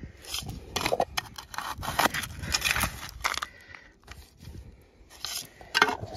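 Dirt and gravel scraping and crunching as they are stirred and shaken around in a plastic detecting scoop to isolate a gold nugget, in an uneven run of strokes.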